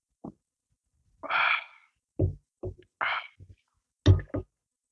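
Close-miked drinking sounds from a can of fizzy drink: two breathy exhales, each like a sigh after a swig, with a series of short, deep swallowing sounds between and after them. The deepest and loudest comes near the end.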